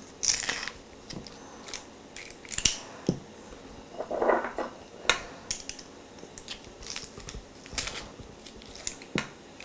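Hand-held metal garlic press crushing garlic cloves: a series of irregular clicks and clacks from the press, with a short crunch as a clove is squeezed about four seconds in.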